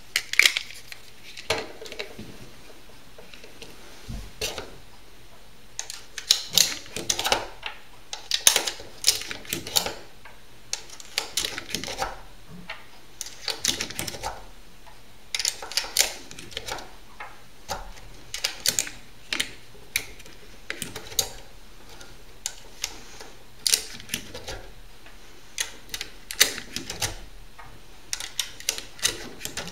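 Plastic UpLULA magazine loader clicking and clacking as .380 cartridges are dropped in and pressed down one by one into a double-stack pistol magazine. The sharp clicks come at irregular spacing, at times several in quick succession.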